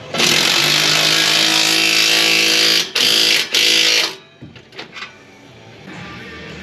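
Handheld power tool whirring under the truck in three trigger pulls, one long and two short, while tightening the exhaust clamp nuts.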